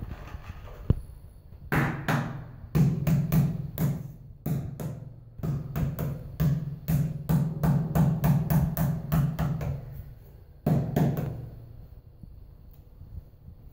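Ceramic wall tile being tapped by hand to bed it into fresh cement mortar: a run of dull knocks, about three a second, beginning about two seconds in. The knocks pause briefly twice and stop a couple of seconds before the end.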